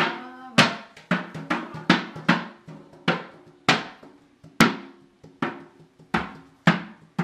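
Hand drum beaten with the hands in a steady rhythm, about two to three strokes a second with some louder accented hits, each stroke ringing briefly with a pitched tone.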